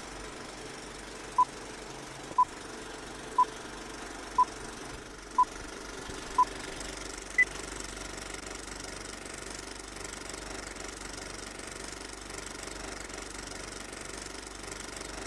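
Steady clatter of a film projector running. Over it come six short beeps one second apart, then one higher-pitched beep a second later, like a film-leader countdown.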